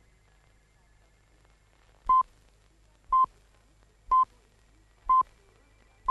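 Radio time signal: short beeps of one steady pitch, one per second, starting about two seconds in, counting down to the full hour, with a fifth beep at the very end.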